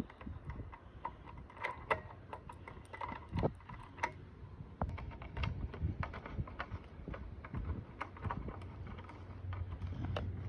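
Irregular clicks, clacks and knocks of a Firelite BG-10 fire alarm pull station being worked to reset it, using a stand-in for its lost key.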